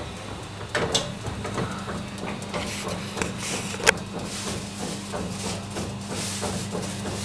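Baumkuchen oven running, with a steady low hum while the spit turns the cake, and scattered clicks and knocks over it, the sharpest about four seconds in.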